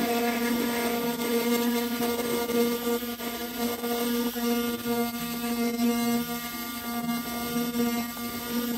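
Mini rotary tool running at a steady speed, its spinning bit polishing the face of an old silver 100-yen coin coated in polishing compound: a steady pitched motor hum with a rubbing hiss of the bit on the metal.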